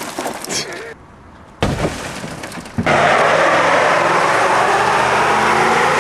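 Glass crunching and breaking from a smashed car window in the first second. Then, from about three seconds in, a pickup truck doing a burnout: the engine held at high revs while the rear tyres spin on the gravel, making a loud, steady noise that is the loudest part.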